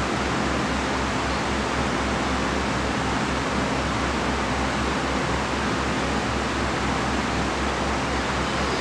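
A steady, even rushing noise like a running fan, with a low hum underneath that pulses regularly several times a second; no knocks or clanks stand out.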